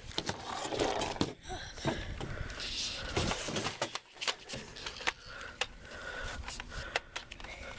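Irregular clicks, knocks and rattles of an airsoft rifle being handled and loaded.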